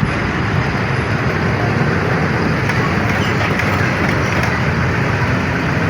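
Steady rumble of road traffic, with heavy vehicles passing.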